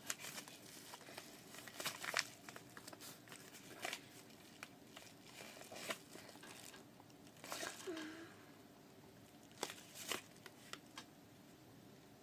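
Yellow padded paper mailer envelope crinkling as it is handled and turned over, in scattered short bursts that thin out near the end.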